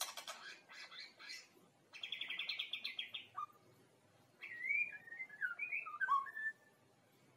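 Young white-rumped shama singing. It gives a few harsh, buzzy notes, then a fast rattling trill, then a run of whistles sliding up and down: a young bird practising its full song.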